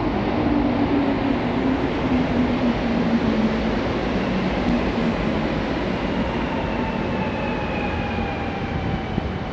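Azur MPM-10 rubber-tyred metro train pulling into the platform and slowing: a steady rumble with whining tones that fall slowly in pitch as it brakes.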